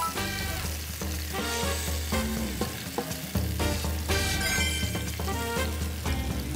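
Bone-in beef short ribs sizzling as they sear in an oiled frying pan, with background music playing over it.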